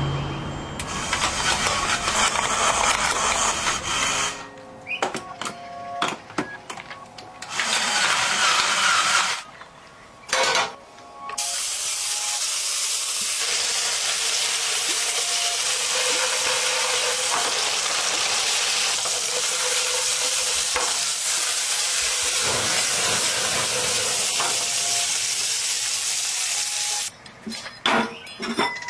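Food sizzling in hot oil in a pan: a steady hiss, broken by several pauses and a few knocks of a utensil in the first ten seconds or so, then running on unbroken.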